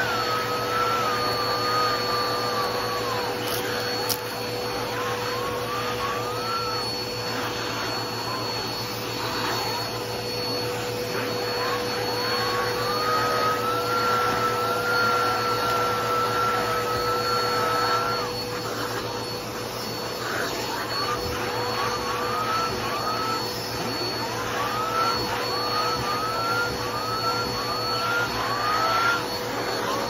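Vacuum cleaner running steadily as its hose and upholstery tool are stroked across fabric sofa cushions. Its whine shifts in pitch, rising in short repeated sweeps, about one a second in the second half, as the tool moves over the upholstery.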